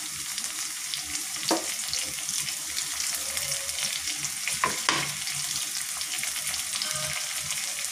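Sliced onions, with mint and coriander just added, sizzling steadily in hot oil in a frying pan while being stirred with a wooden spatula. A few brief scrapes of the spatula against the pan stand out, about a second and a half in and twice just before the five-second mark.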